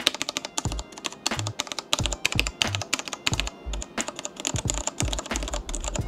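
Fast typing on a mechanical keyboard fitted with Cherry MX Red linear switches: a dense, uneven run of key clacks, many with a low knock as the keys bottom out.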